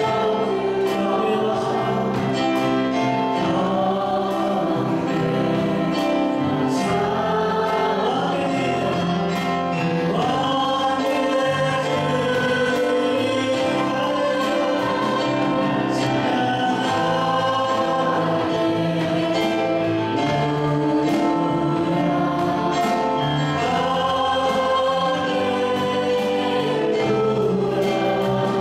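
Church praise team singing a Korean worship song through microphones, a woman's voice leading, continuous and steady.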